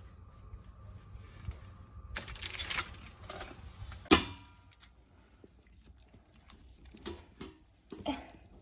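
Kitchen handling noises from a stainless steamer basket and tongs: a short scrape about two seconds in, one sharp metallic clack about four seconds in that is the loudest sound, then a few lighter taps near the end as the tongs touch the basket.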